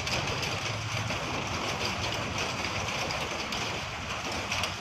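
Steady rain falling, with faint scattered ticks and a low hum underneath.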